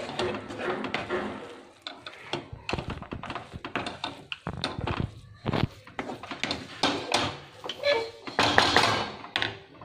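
A spatula scraping and knocking against a pan as cooked fried rice is stirred and tossed, in irregular strokes.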